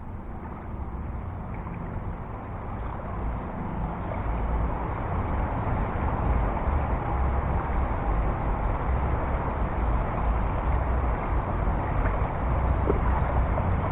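Steady rushing of fast-flowing river water, growing louder over the first few seconds, with a low rumble beneath.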